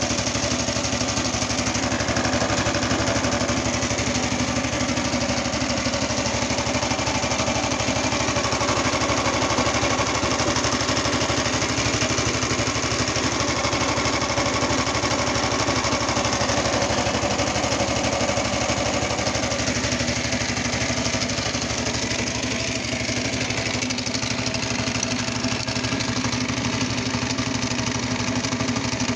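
Homemade garden tractor's engine running at a steady speed, turning a belt-driven Suzuki Bandit 1200 motorcycle alternator fitted to charge the battery.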